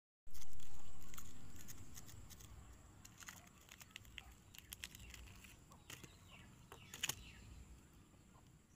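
Small vitamin C sachet being handled and tugged at in an attempt to open it: scattered soft crinkles and clicks, a little louder about seven seconds in. A low rumble at the start fades away over the first two seconds.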